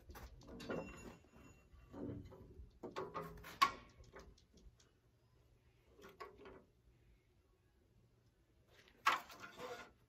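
Metal clunks, clicks and short scrapes from the steel carriage and track of a Norwood HD36 sawmill being handled, with a sharp click about three and a half seconds in and a longer scraping slide near the end.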